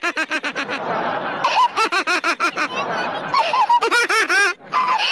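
A woman laughing hard, in quick runs of ha-ha-ha that go on almost without a break, with a short pause near the end.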